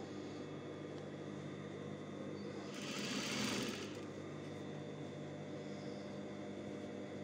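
Steady hum of an industrial sewing machine's motor running. About three seconds in comes a brief rustle of fabric being folded and handled.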